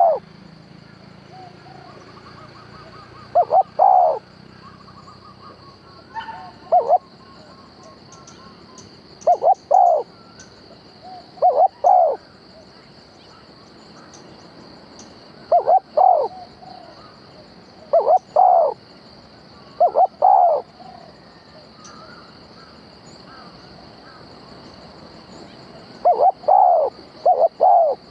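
A decoy dove cooing in short pairs of low, arched notes, repeated every few seconds, with a longer pause before a quick run of calls near the end. A faint steady high-pitched insect-like whine runs underneath.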